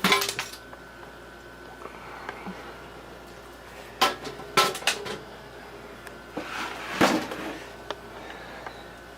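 A few sharp metallic clanks and knocks with quiet gaps between them: hands and tools handling the metal case of a vintage oscilloscope while opening it up.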